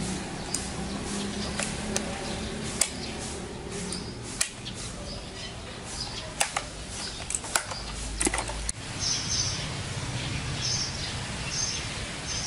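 A dozen or so scattered sharp clicks and taps, then from about nine seconds in short high chirps repeating every second or so, over a steady low hum.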